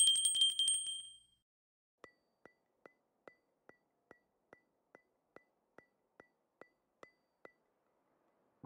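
Added editing sound effects: a bright, high chiming ding lasting about a second, then a steady series of short, light ticks, about two and a half a second, for some five seconds before stopping.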